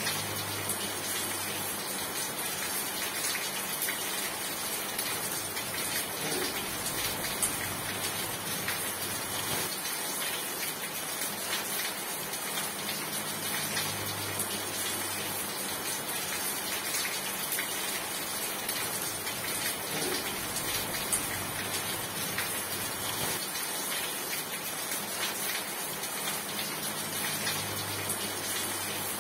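Steady heavy rain: an even, unbroken hiss with scattered drop ticks.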